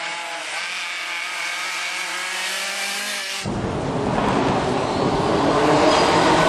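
Rally car engine held at high revs as the car comes along the stage. About three and a half seconds in, a cut to another rally car approaching, its engine and tyres on the wet road growing louder.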